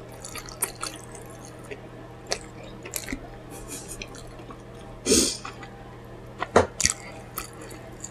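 Close-up chewing of pizza: wet mouth clicks and smacks, scattered and irregular, with a louder, longer smack or swallow about five seconds in.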